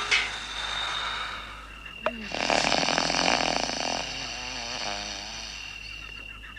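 A man snoring: a loud, rattling snore begins about two seconds in, followed by a quieter breath with a wavering, whistle-like tone.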